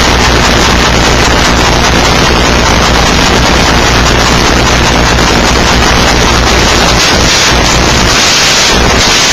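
Loud, steady static-like hiss with a low hum underneath; the low hum drops away about seven seconds in.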